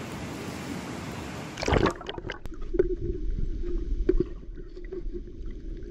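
River water: a steady rush of water, then after a sudden change about two seconds in, closer gurgling and splashing with scattered knocks.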